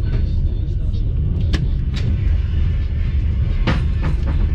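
Passenger train carriage running along the line: a steady low rumble, with a few sharp clicks or knocks, the loudest about three and a half seconds in.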